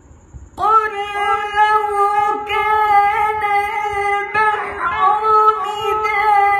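A man reciting the Quran in melodic tajweed style into a microphone. He begins about half a second in after a pause, holding long, high, ornamented notes with one brief breath-like break midway.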